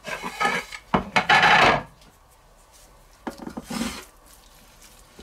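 Wooden cutting board handled on a larger wooden board: a knock about a second in, then a rasping scrape of wood on wood lasting under a second as the board is slid aside. Softer handling of raw chicken strips in a stainless steel bowl follows.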